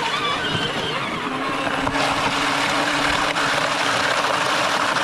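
Power Wheels John Deere Gator ride-on toy driving, its electric drive motors and gearbox whining under a steady rushing noise. The pitch wavers in the first second, then settles into a steady whine.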